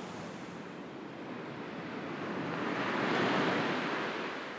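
Sea surf washing onto a shore: a hiss of one wave that swells to a peak about three seconds in, then eases off.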